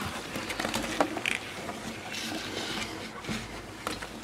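Someone climbing down a metal rung ladder: irregular knocks and scuffs of hands and boots on the rungs, over a steady rustle of clothing and movement.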